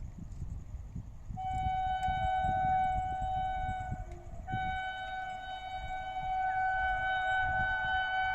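Electric locomotive's air horn sounding two long, steady blasts, the second one longer, over a low rumble.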